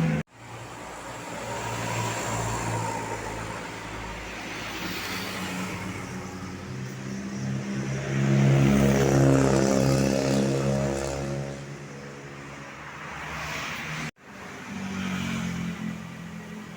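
Tour bus diesel engine drone as a bus passes, building to its loudest about eight to ten seconds in and then fading away. The sound cuts out abruptly twice, near the start and near the end.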